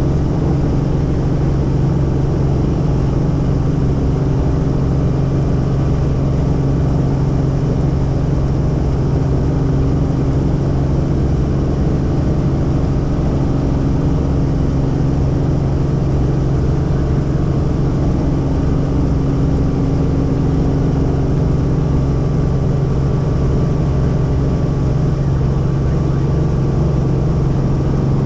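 Helicopter in flight heard from inside the cabin: a steady engine and rotor drone, with a low hum and a fast low pulsing from the rotor.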